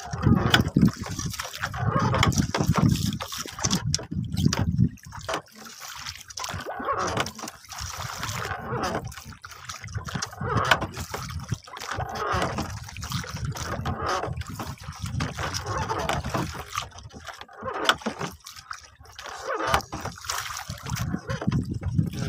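Seawater slapping and splashing against the hull of a small wooden boat, in irregular bursts.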